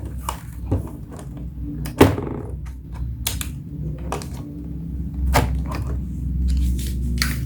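Irregular plastic clicks and knocks from a laptop being handled as its battery is unlatched and taken out, the sharpest about two seconds in and again near the end.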